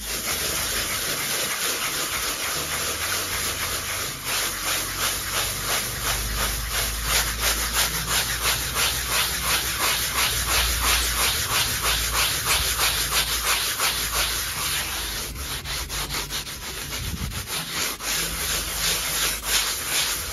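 Wet foam block rubbed over fresh render on a block wall in quick, rhythmic back-and-forth strokes, a steady scraping hiss: floating the render to flatten and smooth its finish.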